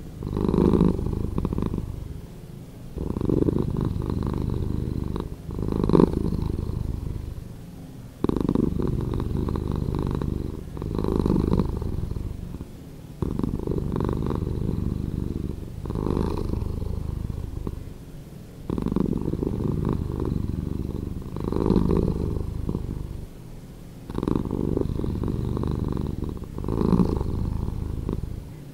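Domestic cat purring continuously, slowed down. The purr swells and dips in an even rhythm about every two and a half seconds as the cat breathes in and out.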